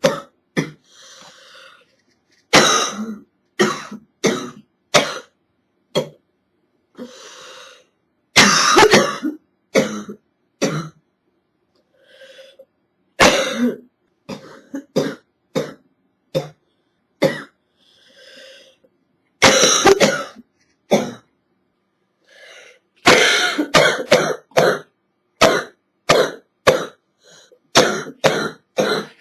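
A girl's hacking cough from a chest cold, coming in repeated bouts of several coughs in quick succession, with short pauses between bouts.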